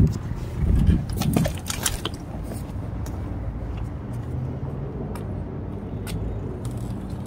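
Knocks and rattles from a bicycle for about the first two seconds as it comes to a stop, then a steady low hum of a motor vehicle's engine running.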